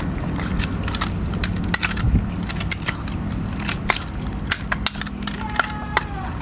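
A spoon stirring raw chicken pieces coated in spice paste in a stainless steel bowl. The mixing is wet, with irregular clicks and scrapes of the spoon against the steel.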